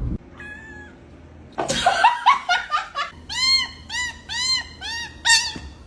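Kittens mewing in short, high calls, first a quick cluster of mews about a second and a half in, then a regular run of about two mews a second.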